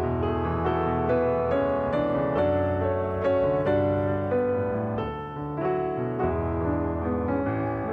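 Background piano music with a slow, gentle melody.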